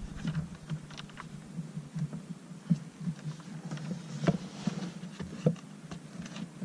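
Scattered light clicks and taps of hand tools and plastic trim being handled while working a car's start button out of the dash, at irregular intervals with a sharper click a little after four seconds, over a low steady hum.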